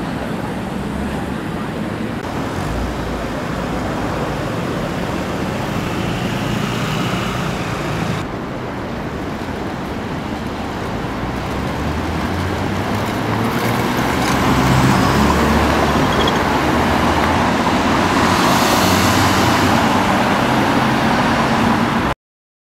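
Road traffic going by: car and van engines and tyre noise, louder in the second half, cutting off abruptly near the end.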